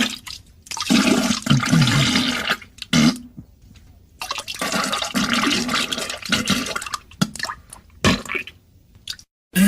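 Cartoon diarrhea sound effect: a run of wet, spurting splats and flatulent buzzes, broken by short pauses.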